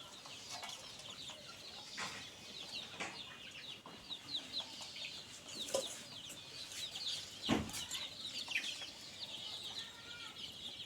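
A flock of young Australorp chickens calling, a dense chatter of short high peeps and clucks, with a few sharp knocks, the loudest about seven and a half seconds in.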